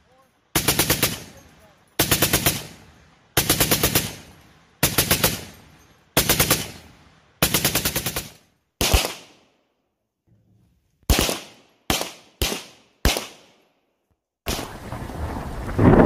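Belt-fed heavy machine gun on a tripod firing six short bursts about a second and a half apart, each burst ringing away. Then a handful of single rifle shots, unevenly spaced. A rushing swell of noise starts near the end.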